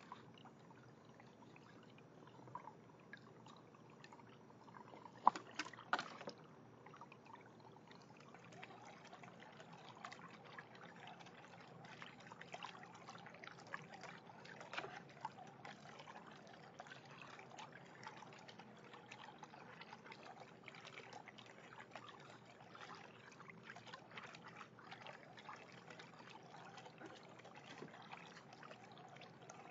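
Faint water trickling and splashing in a half-barrel backyard fountain as raccoons dabble their paws in it, with many small splashes and ticks. A short burst of sharper knocks and splashes comes about five to six seconds in.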